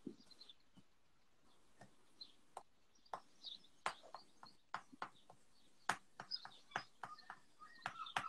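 Faint bird chirping, scattered sharp clicks and taps, and near the end a seagull calling in a quick series of repeated short notes.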